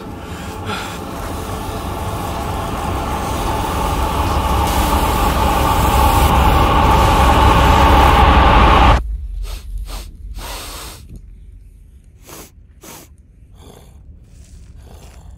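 Edited trailer sound effect: a dense, rumbling roar swells steadily louder for about nine seconds, then cuts off suddenly, leaving scattered short knocks and breathy sounds.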